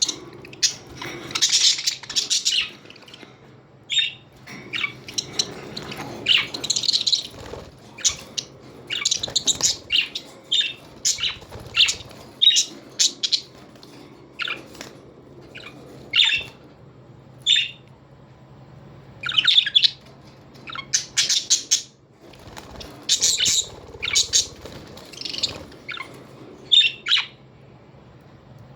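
Parrots chirping and squawking in many short, sharp, high calls, some loud, overlapping and coming at irregular intervals.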